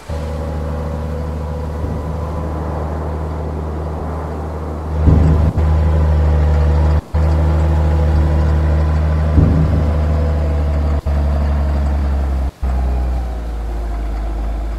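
Steady, loud drone of heavy machinery with a deep hum and higher overtones, in a deep concrete tunnel shaft where a tunnel boring machine is breaking through. It grows louder about five seconds in and cuts out briefly three times.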